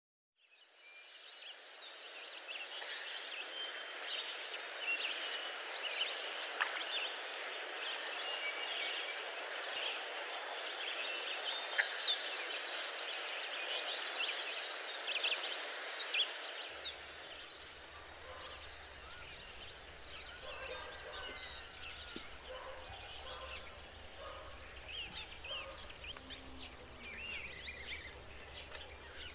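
Outdoor rural ambience: many birds chirping and calling over a steady hiss, with a loud rapid trill about eleven seconds in. After about seventeen seconds it turns quieter, with scattered calls over a low rumble and a few clicks near the end.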